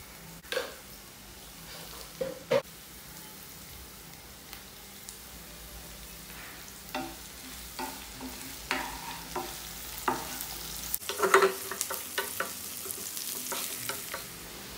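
Stir-frying in a pan: a spatula knocking and scraping against the pan while oil sizzles. There are a few separate sharp knocks at the start, and the sizzling and stirring grow busier about two-thirds of the way through.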